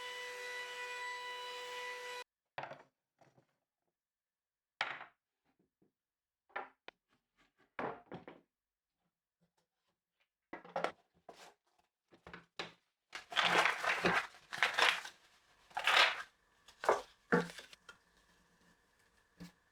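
A steady machine hum with a clear pitch cuts off suddenly about two seconds in. After it come scattered knocks, clicks and scraping from wooden workpieces being handled, growing denser and louder with rustling and scraping near the end.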